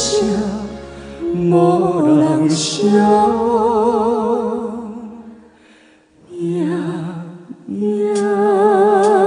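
A man and a woman singing a Taiwanese Hokkien ballad together with musical accompaniment, drawing out long notes with vibrato. The sound falls almost to nothing about six seconds in, then a last long note is held.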